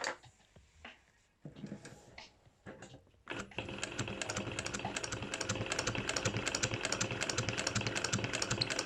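Industrial walking foot sewing machine with a servo motor stitching through leather: after a few faint handling sounds, a rapid, steady clatter of needle strokes starts a little over three seconds in and keeps going.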